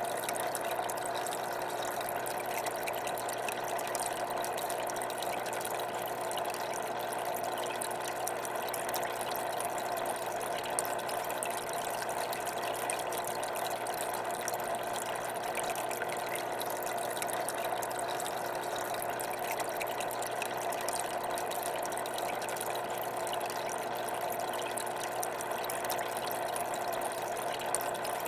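Steady hum and water-flow noise of an aquarium's pumps running as they circulate the tank water.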